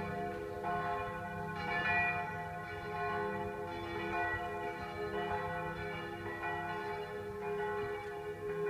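Church bells pealing: several bells struck over and over, a fresh strike about once a second, their long ringing tones overlapping.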